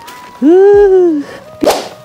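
Edited-in sound effects: a loud pitched tone swoops up and back down for under a second, then a short noisy whoosh comes just before the cut, over faint background music.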